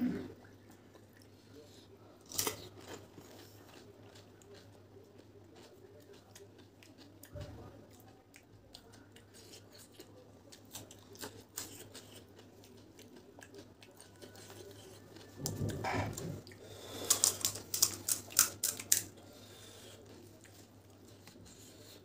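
Close-miked eating of pani puri and raw green chillies: soft wet chewing with scattered crisp crunches, then a quick run of sharp crunches a few seconds before the end.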